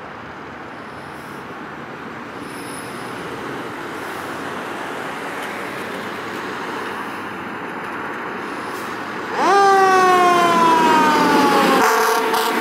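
A 2010 KME fire engine pulling out with its engine running, the sound growing louder as it comes closer. About nine seconds in, its siren comes on loudly, jumping up fast and then sliding slowly down in pitch. Near the end the siren goes to steadier, broken tones.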